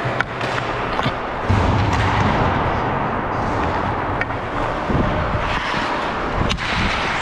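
Ice hockey being played in a rink: a steady noisy wash of play on the ice, with a few sharp clacks of sticks and puck and low rumbling thuds about a second and a half in and again about five seconds in.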